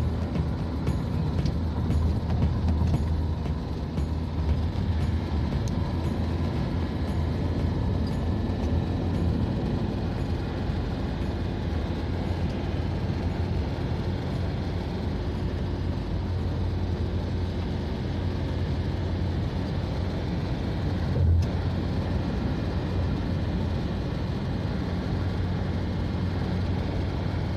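Car driving at road speed, heard from inside the cabin: a steady low rumble of engine and tyre noise. A single brief bump stands out about three quarters of the way through.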